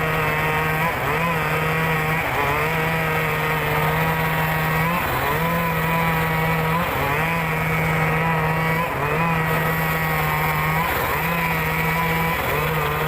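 Mobile circular-disc sawmill running steadily while cutting timber. Its pitch sags briefly every couple of seconds as the blade takes load.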